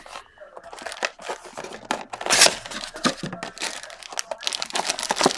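A cardboard box of Donruss Elite football cards being opened and its foil-wrapped card packs pulled out, crinkling and rustling in irregular bursts, loudest about two seconds in.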